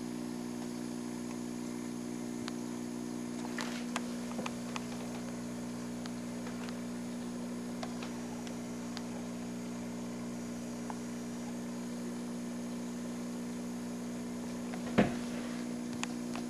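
Steady electric hum of aquarium equipment running, with a few faint clicks and one sharp knock about fifteen seconds in.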